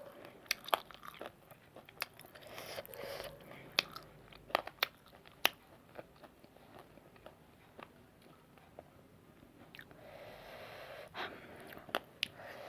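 Close-up eating sounds of someone eating spicy noodles: chewing with scattered sharp, wet mouth clicks and smacks, and a longer breathy sound about ten seconds in.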